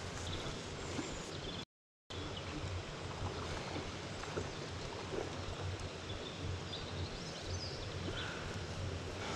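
Steady outdoor ambient noise, a low uneven rumble under a soft hiss, cut by a brief gap of silence about two seconds in.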